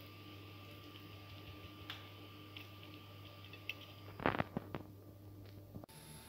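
A metal spoon spreading wet green chili sambal over chicken on a plate: soft wet scrapes and a few light clicks, then several sharp knocks of the spoon against the plate about four seconds in. A steady low hum runs underneath.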